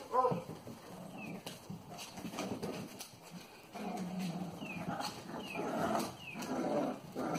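Cavalier King Charles Spaniel puppies play-fighting: scuffling and small knocks, busiest in the second half, with a few short, high, falling squeaks.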